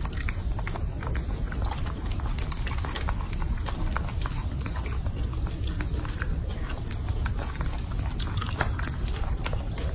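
Baby monkey chewing and biting into a cherry, with many small wet clicks and smacks over a steady low rumble.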